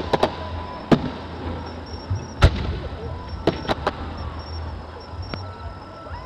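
Aerial fireworks shells bursting as a series of separate sharp bangs, about eight in all. The loudest comes about two and a half seconds in, three follow in quick succession about a second later, and a much bigger boom hits right at the end.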